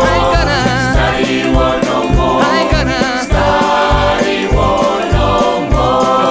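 Gospel choir singing in full harmony with wavering, melismatic vocal lines, over a band with a steady low beat of bass and drums.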